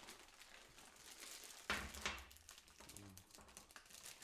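Handling noises from parts being picked up: low rustling, with a sharp knock and a rustle about two seconds in.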